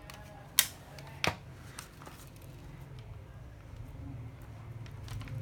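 Two sharp knocks about two-thirds of a second apart, over a faint low hum.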